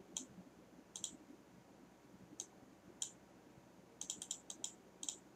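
Computer mouse clicking: single clicks about a second apart, then a quick run of about six clicks around four seconds in, and one more near the end.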